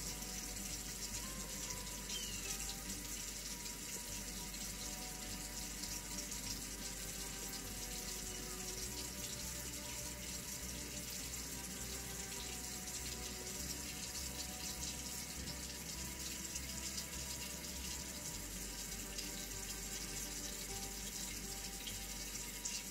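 A steady, even hiss with faint, soft music notes underneath.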